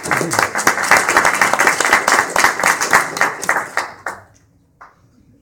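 A small audience applauding: dense hand clapping that dies away about four seconds in.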